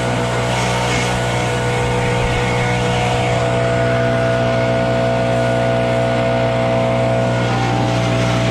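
Engine-driven blower running at a steady, constant speed, blowing chaff out of a combine's air-to-air cooler, with a rushing hiss of air over the engine's steady hum.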